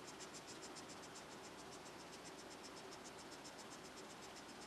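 Faint, rapid chirping of a cricket, an even pulse train of about eight chirps a second, over a faint steady hum.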